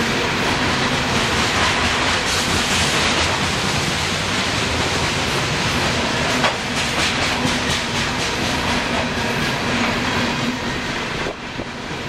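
Coal hopper cars of a CSX freight train rolling past close by: a steady rumble of steel wheels on rail, with a sharp knock about halfway through and then a run of rhythmic wheel clicks over the rail joints.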